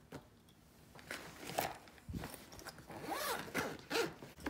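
Zipper on a black nylon makeup-kit bag being pulled along in a run of short scratchy strokes, with a soft thump about two seconds in.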